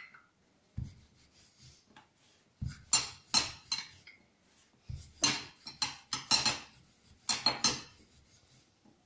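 Wooden rolling pin working a stuffed paratha on a granite counter: irregular clusters of sharp knocks and clinks as the pin is rolled, lifted and set down.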